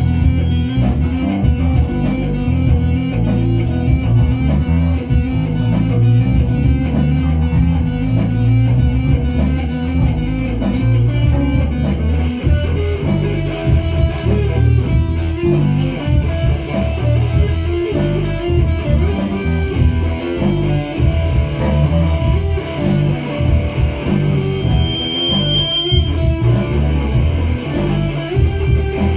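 Electric guitar and bass guitar playing an instrumental jam together, loud and steady with a strong low end; about halfway through, higher sustained guitar notes come in over the riff.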